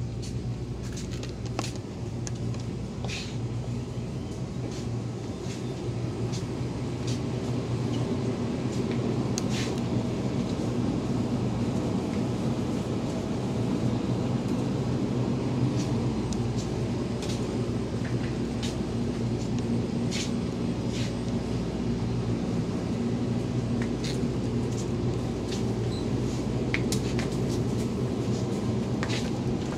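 Steady low mechanical hum of a supermarket's refrigerated display cases and ventilation, growing a little louder several seconds in, with scattered light clicks and rattles.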